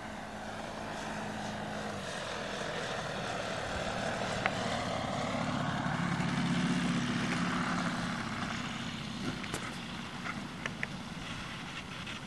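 A steady low drone with wind-like hiss, swelling about halfway through, as a radio-controlled model glider passes low and lands on grass. A few light clicks come near the end.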